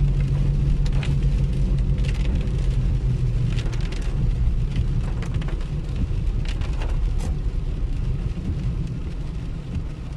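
Heard from inside a car driving through heavy rain on a water-covered street: a steady low rumble of the tyres through the water, with rain on the car and the windscreen wipers sweeping on continuous. A few brief, sharper sounds are scattered through it.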